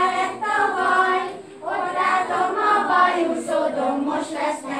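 A group of young children singing together in unison, a song for a circle game, in phrases with short breaths between them.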